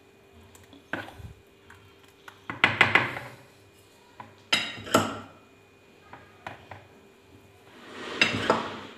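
Metal spoon stirring thin batter in a mixing bowl, clinking and scraping against the bowl in several short spells.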